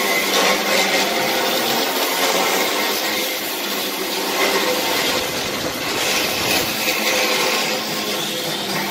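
Continuous workshop noise of a tool or machine running, with a steady low hum underneath.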